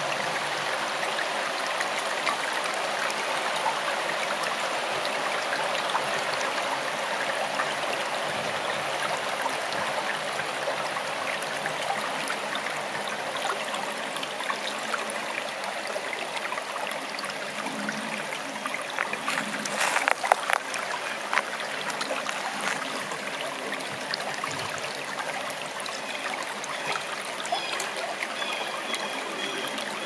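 Small forest stream flowing steadily, with a brief cluster of louder splashing burbles about two-thirds of the way in.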